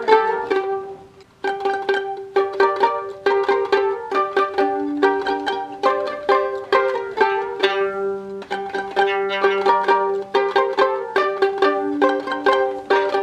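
Background music of quick plucked-string notes, with a short break about a second in and a low held note entering about halfway through.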